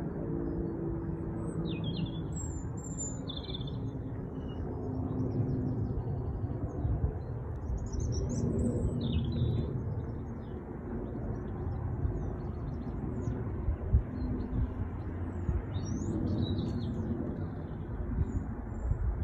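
British Airways Airbus A350 jet airliner passing high overhead, its Rolls-Royce Trent XWB engines a steady low rumble with faint humming tones that swells and eases slowly. Small birds chirp over it in short bouts, about two, eight and sixteen seconds in.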